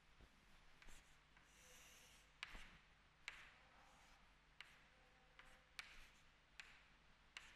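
Faint chalk on a chalkboard: a longer scratchy stroke drawing a line about two seconds in, then a series of short sharp taps as tick marks and a numeral are marked, roughly one a second.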